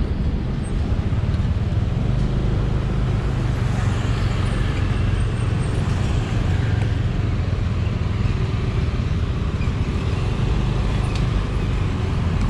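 Steady street traffic, with cars and motorcycles running by over a constant low engine rumble from the motorcycle close at hand.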